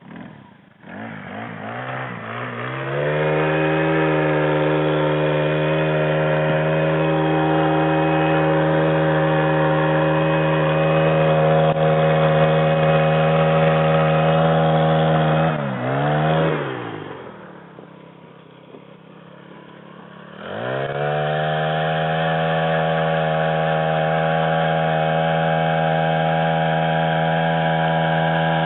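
Gas-powered ice auger engine revving up in the first few seconds and running steady at high throttle. Past the middle it drops to a low idle for about three seconds, then revs back up and runs steady again.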